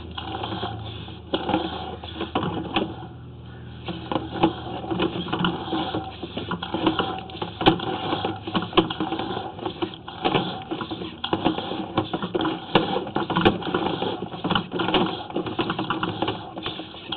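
Irregular clicking and rattling of a sewer inspection camera's push cable as it is pulled back through the pipe and fed onto its reel, with a low hum that fades out after the first few seconds.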